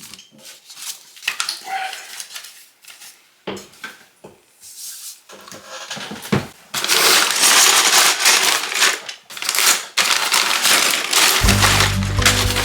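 Plastic crinkling and clattering from a Lego set's packaging and bricks being handled, sparse at first and then dense and continuous from about seven seconds in. Background music with steady low notes comes in near the end.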